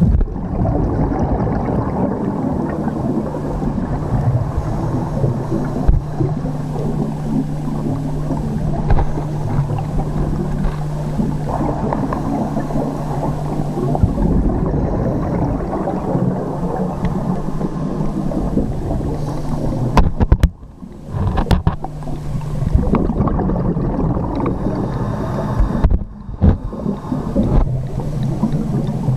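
Muffled underwater noise picked up through a diving camera's housing: a continuous low rumble with a steady low hum through the first half. It drops away briefly twice in the second half, with a few sharp clicks around the first drop.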